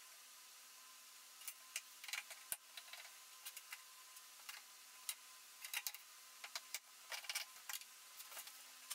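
Scattered light clicks and taps of hand work on a workbench: a steel ruler and thin wooden strips being set against plywood and one-handed bar clamps being ratcheted tight, with a few quick runs of clicks. A faint steady hum lies underneath.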